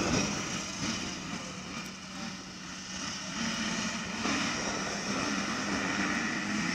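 Engines of a pack of motocross bikes running in the distance, a steady drone that grows louder about four seconds in.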